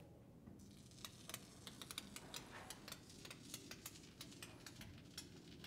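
Near silence with faint, irregular ticks and clicks, a few a second.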